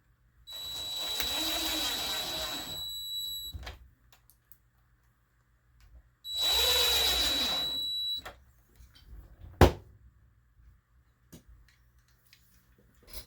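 Power drill driving the two screws of a door latch plate into the door edge, in two runs of about three and two seconds, its motor whine swelling and settling in each. A single sharp click or knock follows a little after the second run.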